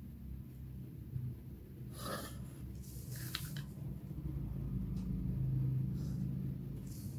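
A few short scratches of a pen drawing lines along a plastic pattern ruler on paper, over a low steady hum.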